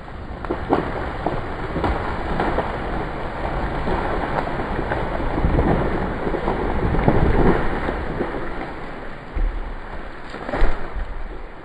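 Wind gusting hard over the microphone, swelling to a peak and easing off, with a few sharp cracks.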